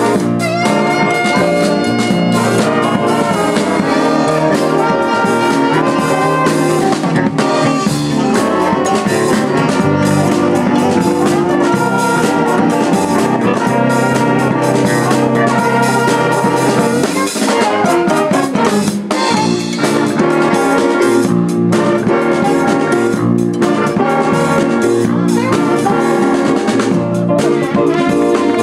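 Live horn band playing an up-tempo jazz-funk tune: saxophones and brass carry the melody over a drum kit and electric guitar.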